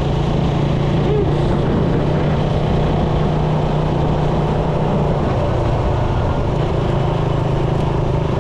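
Suzuki Raider 150's single-cylinder four-stroke engine running steadily while riding, heard from the rider's position with wind and road noise.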